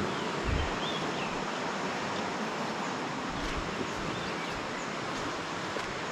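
Steady rushing outdoor noise with a few faint high bird chirps, and a low bump of wind on the microphone about half a second in.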